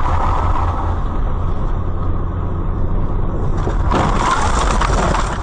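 Moving road vehicle: steady, loud engine and road noise, heaviest at the low end, with a brief swell of hiss about four seconds in.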